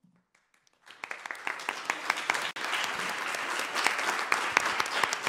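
Audience applauding, which starts about a second in after a brief silence.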